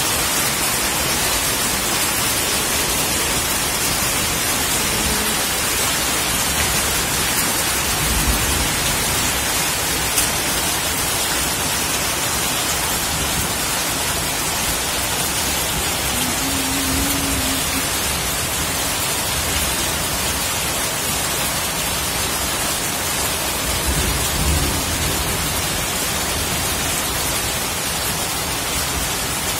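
Heavy rain falling steadily, an even hiss of rain with no break.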